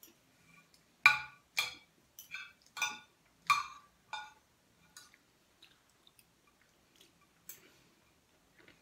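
Metal spoon and fork clinking and scraping against a plate while eating: a run of short, ringing clinks, closely spaced over the first few seconds and sparser after that.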